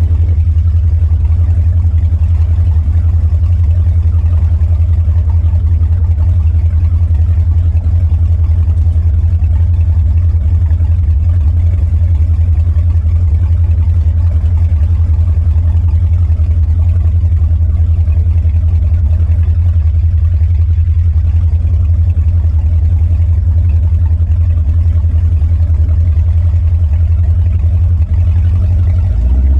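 Powerboat engine running steadily at low cruising speed, a loud, even, deep drone. Right at the end the engine note shifts.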